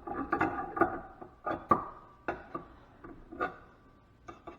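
Metal sprinkler parts being handled on a workbench: a series of sharp clinks and knocks, some with a short metallic ring. The loudest comes a little under two seconds in.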